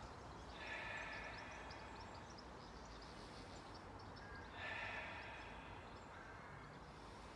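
Two slow breaths, about four seconds apart, each lasting about a second, over faint steady outdoor background noise.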